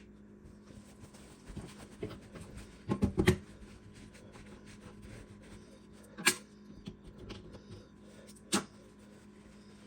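Handling noises from working on the mixer: a cluster of knocks about three seconds in, then two sharp clicks near six and eight and a half seconds, over a faint steady hum.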